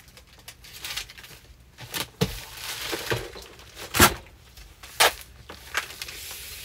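Shipping packaging being handled during order packing: rustling and crinkling with several sharp clicks and knocks, the loudest about four seconds in.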